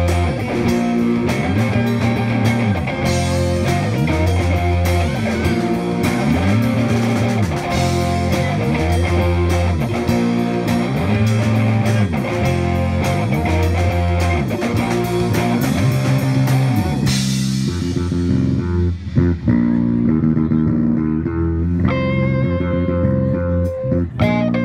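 A live rock band plays an instrumental funk jam on two electric guitars, bass guitar and drum kit, with the bass repeating a figure over the beat. About two-thirds of the way through, the drums drop out, leaving guitar and bass. The drums come back in just before the end.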